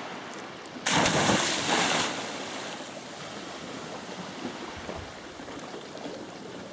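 A person diving from a rock into the sea: one loud splash about a second in, lasting about a second. It is followed by softer churning and lapping water as he surfaces and swims.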